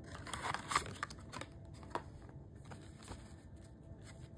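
Faint, irregular taps and rustles of oracle cards being handled and drawn from a deck.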